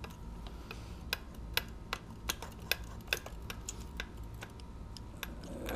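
Small hand-handled engine parts clicking and tapping as they are worked into place in an engine bay: about a dozen sharp, irregular clicks a fraction of a second apart.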